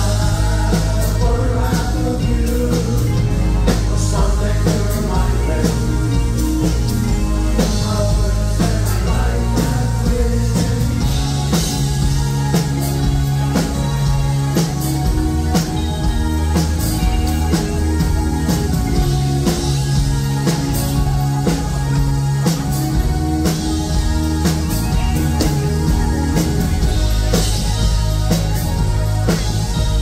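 A new-wave rock band playing live through a concert PA: synthesizer keyboard, electric guitars and a drum kit over a steady beat.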